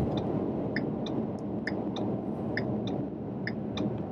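Turn-signal indicator of a 2015 Ford Mustang EcoBoost ticking about once a second, each tick followed by a fainter one. Underneath is the steady road and engine noise inside the cabin at highway speed.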